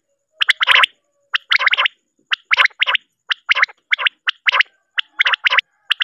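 Male common quail (batair) singing its sharp, repeated call. Each phrase is a single note followed by a quick run of two or three notes, and the phrases come about once a second.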